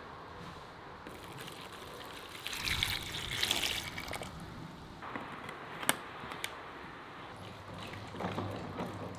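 Water poured from a large plastic bottle into a plastic basin of peeled onions, splashing onto them. About six seconds in there is a sharp click, and near the end hands swish the onions in the water.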